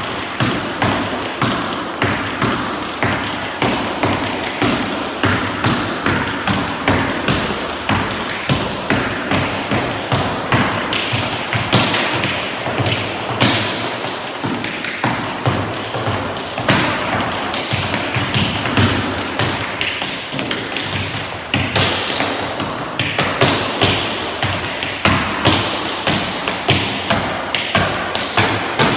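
Tap shoes striking the floor in a fast, continuous tap-dance rhythm, with heavier stamped accents standing out among the quicker taps.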